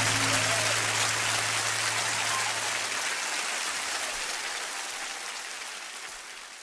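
Audience applauding at the end of a live song, while the band's last low note holds for about three seconds and dies away. The applause fades out steadily.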